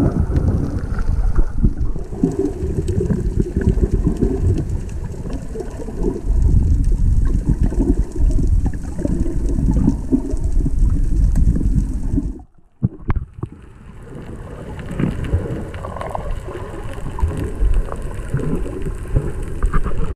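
Muffled water sloshing and bubbling recorded by a camera held underwater, a dense low crackling rumble. It drops out sharply about twelve seconds in and comes back quieter.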